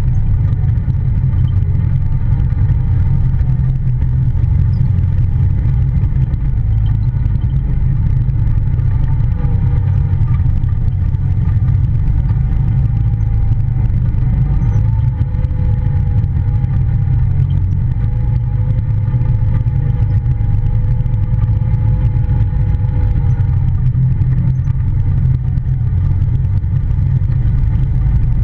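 Polaris Ranger side-by-side running along a trail: a steady low rumble with a faint whine that drifts slightly in pitch.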